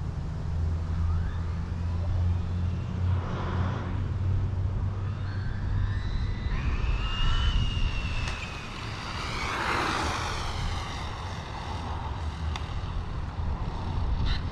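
Traxxas Slash 4x4 RC car's Hobbywing 4274 brushless motor whining at speed as the car runs back toward and past, its pitch rising on the approach and dropping as it goes by about ten seconds in.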